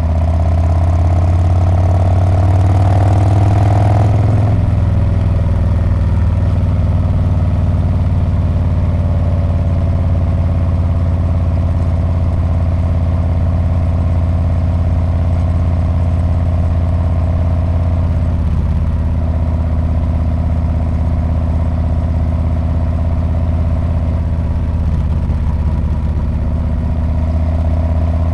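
Harley-Davidson Street Bob's V-twin engine and exhaust under way. The pitch climbs for the first few seconds, drops back sharply about four seconds in, then runs steadily, dipping briefly once past the middle.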